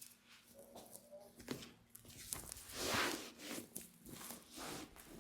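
Irregular rustling and handling noises of a hands-on body treatment, such as hands and cloth moving over the patient on the table, with a louder rubbing swell about three seconds in.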